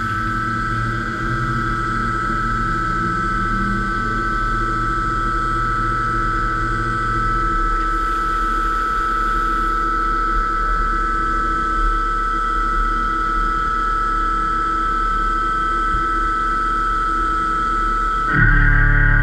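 DMG MORI M1 3-axis CNC vertical milling machine cutting steel: a steady high whine over cutting noise. The sound shifts abruptly and gets louder near the end.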